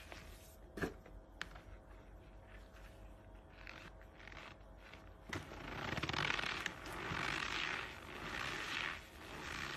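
A hand squeezing and crushing packed lumps of Argo cornstarch: a few small crunches in the first seconds, then longer crunching squeezes from about halfway, loudest just after halfway.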